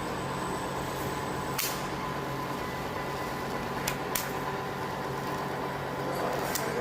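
Welding machine humming steadily, with a few sharp clicks about one and a half, four and six and a half seconds in.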